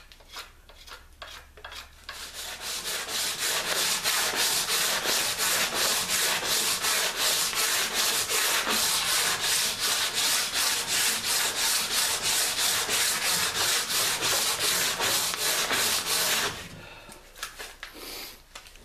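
Sandpaper rubbed by hand back and forth along a peeled wooden walking stick, a fast even rasp of about three strokes a second. It starts about two seconds in and stops about two seconds before the end.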